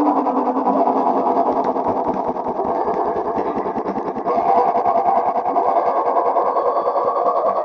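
A sneeze sound stacked and repeated so many times that it blurs into a dense, distorted buzzing drone with a rapid pulsing texture. It gets louder again about four seconds in.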